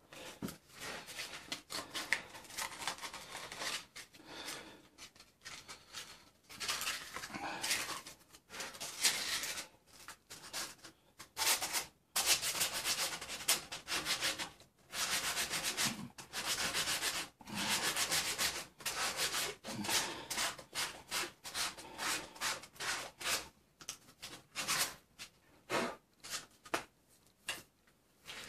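Hand sanding inside the steel bush eye of a Land Rover Defender front radius arm held in a vise: abrasive rubbed back and forth in quick runs of scratchy strokes with short pauses, cleaning out the bore for new bushes. The strokes grow lighter and shorter near the end.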